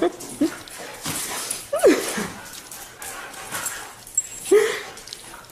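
A dog whining and crying in excitement at greeting its owner: several short whines, with a long falling cry about two seconds in.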